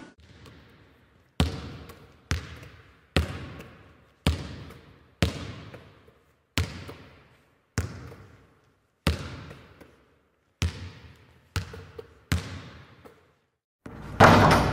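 A series of about eleven single hard thumps, roughly one a second at slightly uneven spacing, each ringing out with a long echo. A louder, longer burst of sound comes near the end and stops abruptly.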